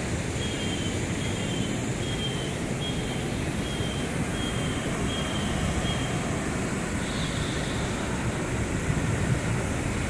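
Steady rush of a wide waterfall pouring over rocky ledges. Over it, a high short chirp repeats about twice a second for roughly the first six seconds, then stops.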